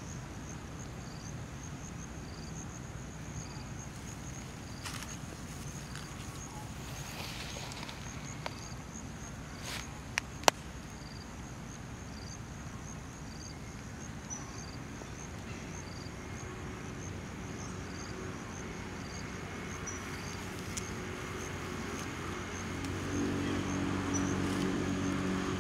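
Outdoor ambience of chirping insects: a steady high buzz with a short pulse repeating about once a second, over a low rumble. A few sharp clicks come near the middle, and a low droning hum grows louder near the end.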